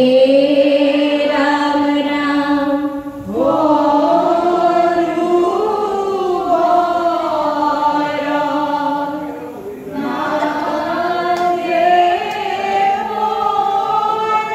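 A group of young voices chanting an Assamese dihanam devotional song together in long drawn-out phrases, with no drum playing. Three long phrases, with short breaths about three seconds in and again about ten seconds in.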